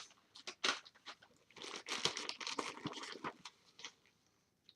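Plastic snack packaging being handled, crinkling and rustling in short irregular bursts that die away about four seconds in.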